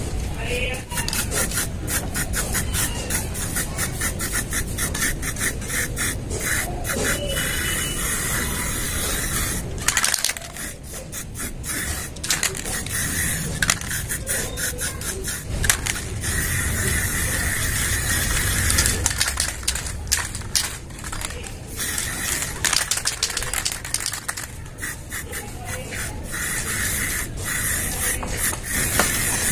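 Aerosol spray paint can, worked by a clip-on trigger handle, hissing in many short bursts as a second coat of black paint goes onto a steel car wheel.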